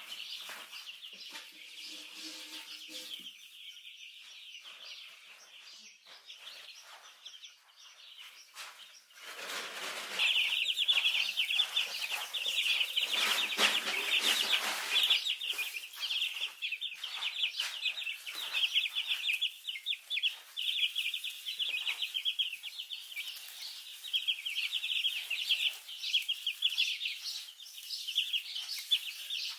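A brood of week-old chicks peeping continuously in rapid high chirps, growing much louder about a third of the way in. A few seconds of rushing noise come under the peeping around the same time.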